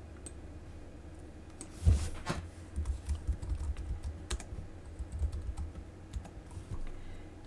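Typing on a computer keyboard: an irregular run of keystrokes, each a sharp click with a dull low thud. It starts about two seconds in and stops shortly before the end.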